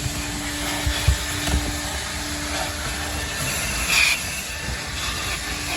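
Coin-operated car-wash vacuum running with a steady hiss of suction through the hose, with a few dull knocks as the nozzle works around the car's interior.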